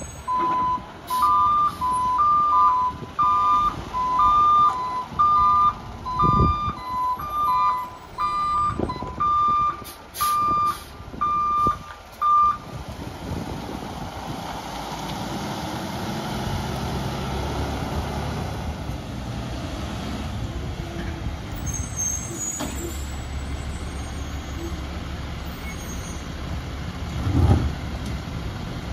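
New Way Sidewinder garbage truck on a Peterbilt chassis reversing, with two backup alarms at slightly different pitches beeping out of step with each other for about the first twelve seconds. Then the truck's diesel engine runs steadily, and a sharp knock sounds near the end.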